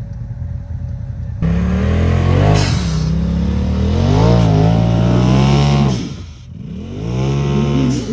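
Off-road vehicle's engine running low, then revving hard in surges from about a second and a half in, pitch rising and falling. It backs off about six seconds in, then revs up again near the end.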